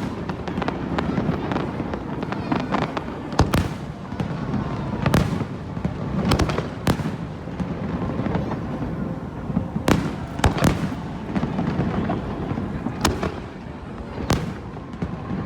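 Aerial fireworks bursting, with sharp bangs every one to three seconds over a steady background noise.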